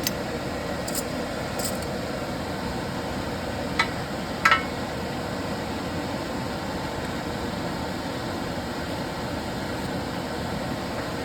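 Steady fan-like background hiss with a few light clicks, two sharper metallic clicks about four seconds in, as the wheel speed sensor is worked loose at the front hub.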